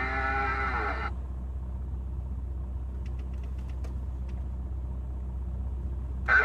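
Low steady rumble of a vehicle engine idling, heard inside the cab over a CB radio receiver. In the first second a pitched whistle-like tone comes through the radio and slides down as it cuts off, and faint crackles of static come midway.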